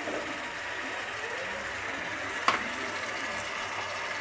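Potatoes, onions and ginger-garlic paste sizzling steadily in hot oil in a nonstick frying pan as a silicone spatula stirs them, with one sharp tap about halfway through.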